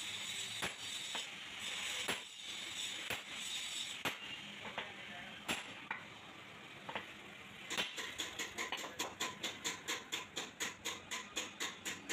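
Hand hammer striking steel parts on a Mahindra 575 DI tractor's front axle: single sharp metallic knocks, irregularly spaced about a second apart. From about eight seconds in, a fast, even tapping of about four beats a second takes over.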